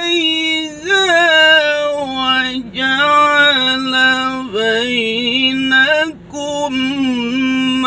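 A man's voice reciting the Quran in melodic tilawah style, holding long, ornamented notes that waver and slide in pitch, with a few brief breaks between phrases.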